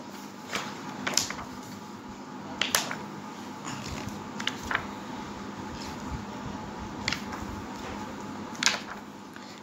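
Pages of a children's encyclopedia being turned by hand: scattered short paper rustles and flicks, the sharpest a little under 3 s in and near 9 s, over a steady low hiss.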